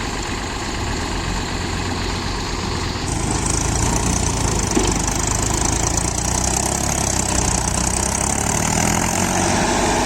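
Heavy machine's engine running steadily, growing louder about three seconds in as it works harder.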